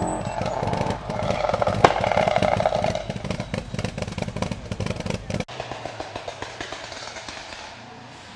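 Rally car engine running hard at high revs and fading as the car pulls away, with one sharp crack about two seconds in. About five and a half seconds in the sound cuts off abruptly to a much quieter background.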